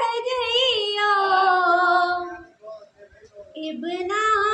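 A woman singing a Purbi-language poem unaccompanied into a microphone, in long held notes with a wavering pitch. She breaks off for about a second midway and starts the next line about three and a half seconds in.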